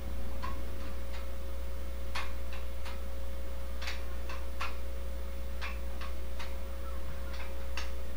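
Dumbbell clicking in small clusters of two or three about every second and a half, in time with hammer-curl repetitions, over a steady low hum.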